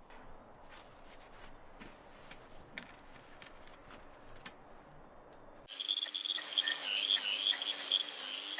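Faint scattered ticks and light scrapes. About two-thirds of the way through, an abrupt cut brings in a steady, high-pitched chirring of insects over a low hiss.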